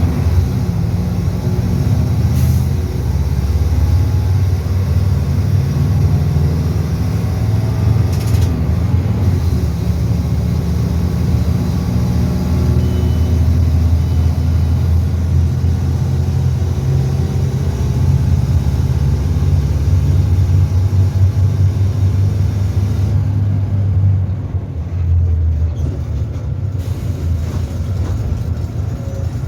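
Mercedes-Benz OF-1722M bus diesel engine running with a deep, steady drone. There are two brief hisses, about 2 and 8 seconds in. The engine eases off and grows quieter about three-quarters of the way through.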